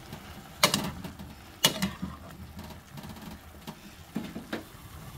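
Metal spoon stirring chunks of eggplant in a frying pan, knocking and scraping against the pan several times at uneven intervals.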